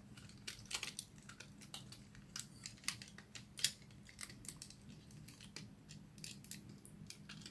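Faint, irregular clicks and taps of a plastic Transformers Alternators figure's parts being moved and snapped into place by hand while it is transformed, with one louder click about three and a half seconds in.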